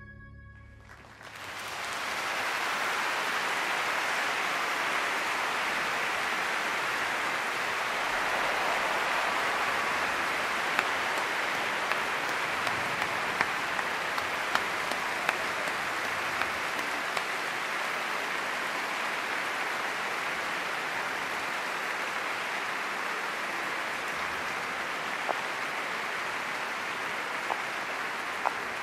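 A large audience applauding, swelling in about a second in and then holding steady.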